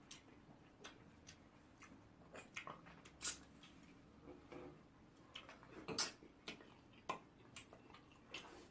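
Faint open-mouthed chewing and smacking while eating soup with starch: irregular wet clicks and smacks, a few of them louder.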